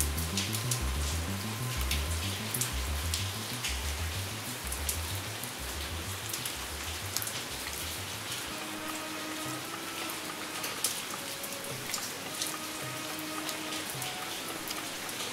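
Steady rain with many distinct drop ticks, over calm background music: a soft repeating low bass pattern for the first half, then held gentle tones.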